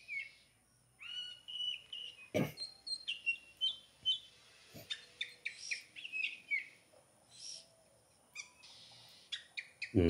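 Oriental magpie-robin calling: a run of short, squeaky whistled chirps, some rising and some falling, with a pause of about a second near seven seconds in. A single sharp click about two and a half seconds in.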